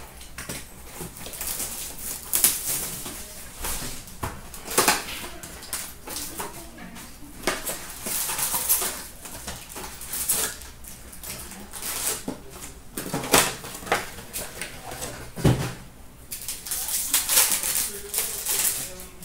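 Hands opening a cardboard hobby box of hockey cards and tearing into and handling its wrapped packs and cards: irregular bursts of rustling and tearing, with a dull knock about fifteen seconds in.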